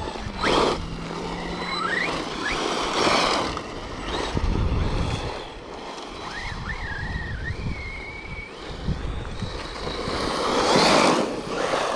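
Brushless motor of an Arrma Mojave 4S 1/8-scale RC monster truck running on a 5S battery, whining up and down in pitch as the throttle is worked. Several loud bursts of tyre noise come as the truck spins and slides on a gritty surface.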